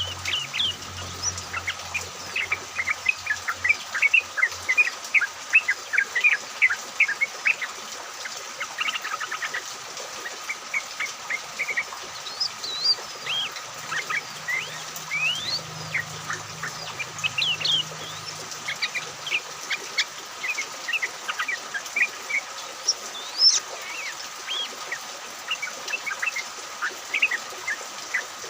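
A flock of yellow-vented bulbuls chattering together: a dense, continuous run of short, quick chirps and bubbly calls from several birds at once, over a steady background hiss.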